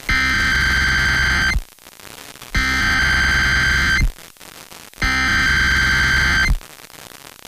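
Three bursts of EAS SAME header data: harsh, buzzing digital tones, each about a second and a half long with about a second of radio hiss between them.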